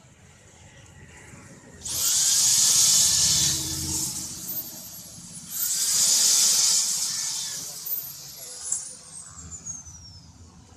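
Corded electric hand drill boring into the edge of a PVC door, run twice. Each run starts with a rising whine and ends with a falling whine as the motor winds down.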